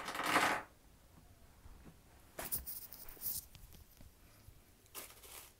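Off-camera handling noises: short rustles of packaging and fabric, a louder one right at the start, a longer one about two and a half seconds in, and a brief one near the end.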